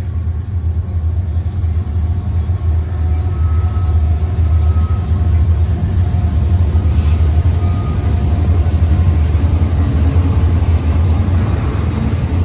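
Union Pacific double-stack freight train running past with a steady, loud low rumble. There is a brief hiss about seven seconds in.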